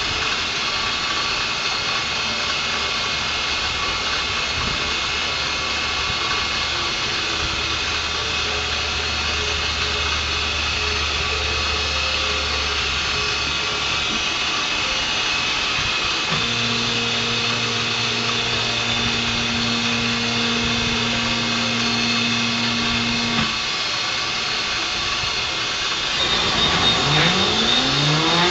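Grizzly G0619 (SX3) benchtop mill under CNC control, its spindle running at 1800 rpm while a 6-flute carbide end mill dry-cuts a circular pocket in 6061 aluminum: steady machining noise. A low hum under it shifts in pitch partway through, and a rising whine comes in near the end.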